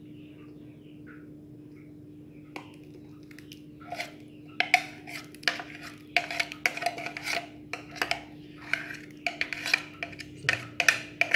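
Irregular clicks and knocks of a utensil against a container as thick ground spice paste is scraped out onto flour, several a second from a few seconds in, over a steady low hum.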